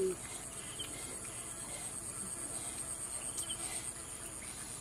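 Steady high-pitched insect chorus with a fast, even pulse, typical of crickets or cicadas. There is a short low sound right at the start and a few faint ticks later on.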